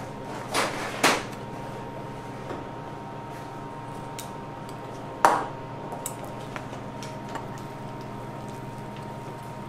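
Kitchen utensils knocking and clinking against stainless steel bowls during cake preparation. There are two sharp knocks within the first second, a louder clank with a brief ring just past five seconds, then a few light clicks. A steady faint hum runs underneath.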